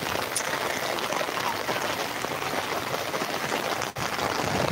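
Rain falling steadily, a dense even patter of drops on the ground and on the phone, with a momentary dropout near the end.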